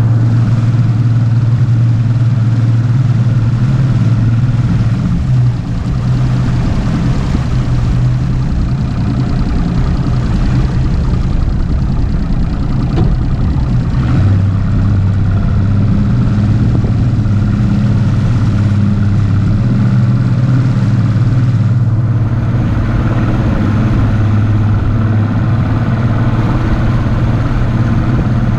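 Mercury Optimax 200 HP outboard, a V6 two-stroke, running steadily at cruising speed as the bass boat planes across the lake, with a continuous rush of wind and water.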